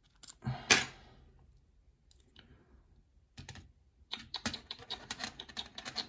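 Small metal lock parts and a pick clicking and tapping as a pin-tumbler cylinder is handled and set down on a plastic pin tray. Two sharp clicks come in the first second, then a quick run of light clicks starts about four seconds in.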